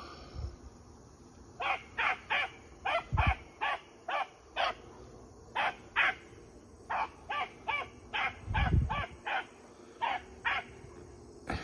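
Rabbit hound giving mouth while running a rabbit's track: about twenty short barks in irregular runs of two to four a second. A few low thumps come through as well.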